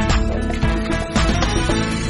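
Upbeat intro theme music with sharp drum hits, settling into a held chord a little past halfway.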